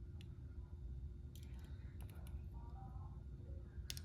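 A few faint, scattered metallic clicks from Smith & Wesson handcuffs as a pick works in their keyhole, trying to open the lock.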